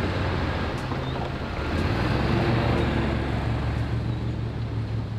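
Boat motor running steadily, a low hum under a rushing wash of noise.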